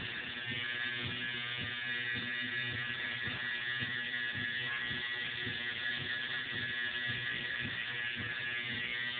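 Tattoo machine buzzing steadily as it works ink into the skin.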